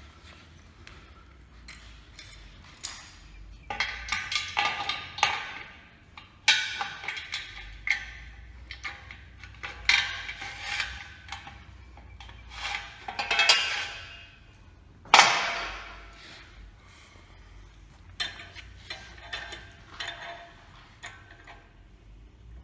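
Steel parts of a chainsaw sawmill frame being handled and fitted: a bracket slid and clamped onto a square steel rail, giving a series of metallic clinks, scrapes and knocks, loudest in one sharp clang about two-thirds of the way through.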